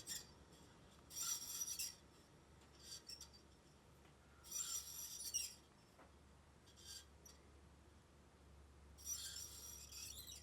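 Casablanca Bel Air Halo ceiling fan running with a recurring scraping rub every second or two over a faint motor hum. It is a rubbing, not bearing noise, which the owner traced to a loose flywheel set screw.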